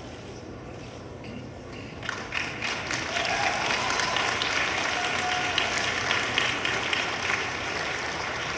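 Audience applause: many hands clapping, breaking out about two seconds in and going on steadily.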